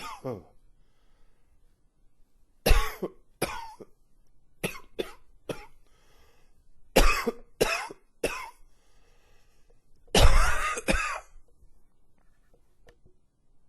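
A man coughing in a fit: a string of single coughs with short pauses between them, then one longer cough about ten seconds in, after which the coughing stops.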